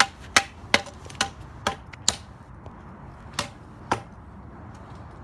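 A baseball bat striking a small toy car lying on grass: a quick run of six sharp knocks in the first two seconds, then two more about three and a half and four seconds in.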